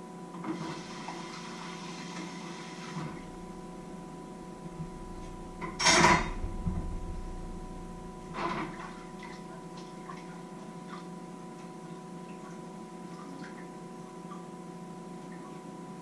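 Washing up at a kitchen sink: a tap runs for a couple of seconds, then dishes clatter loudly about six seconds in and again more lightly a couple of seconds later, with light clinks in between, over a steady electrical hum.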